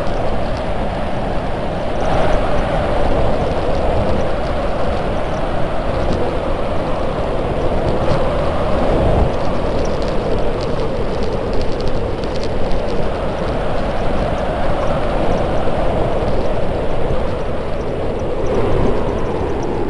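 Bobsleigh running at speed down an ice track: a loud, steady rumbling rush of the runners on the ice, which swells and eases slightly but never stops.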